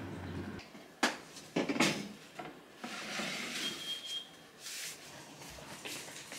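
Household handling sounds, with two sharp knocks about one and two seconds in, then softer rustling, as laundry is taken out of a front-loading washing machine into a basket.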